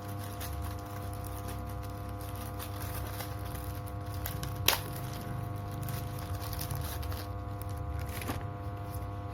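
Handling of the unboxing packaging: faint scraping and ticks over a steady low electrical hum, with one sharp click about halfway through.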